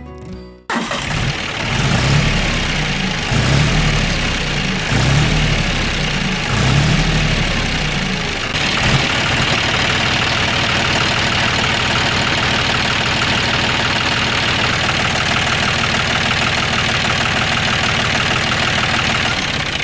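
Engine running: uneven, with swelling pulses, for the first several seconds, then settling to a steady, even run from about eight seconds in.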